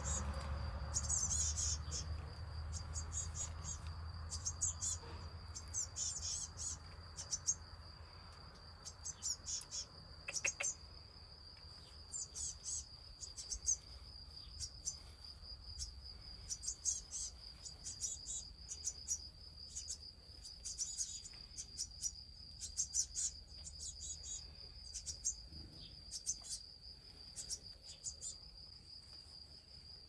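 A steady, high-pitched insect trill, with many short high chirps coming in quick clusters over it.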